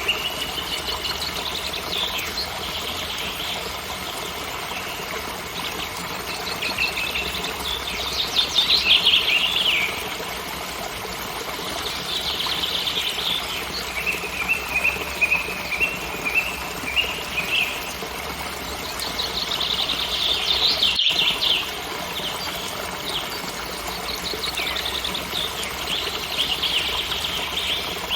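Waterfall rushing steadily, with songbirds singing repeated trilling phrases every few seconds.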